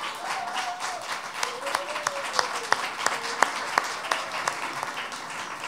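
Audience applauding, the individual claps distinct rather than a dense roar.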